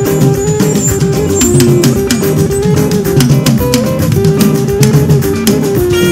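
Upbeat live band music for high praise: a saxophone melody holding notes and sliding between them over busy guitar, bass and a steady percussion beat.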